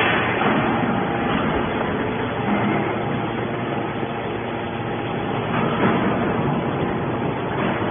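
Horizontal hydraulic metal baler running: a steady machine drone with a few faint steady tones, and a couple of brief knocks, one about six seconds in and one near the end.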